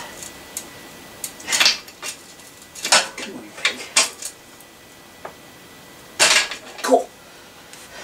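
Metal clinks and knocks of a bottom bracket removal tool and wrench working on a bicycle's bottom bracket, trying to loosen a reverse-threaded bottom bracket. A handful of separate clinks, the loudest about six seconds in.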